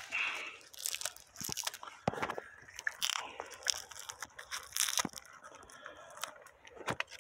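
Irregular crunching, crackling and tearing as an air layer on a guava branch is pulled and broken free by hand, without a knife.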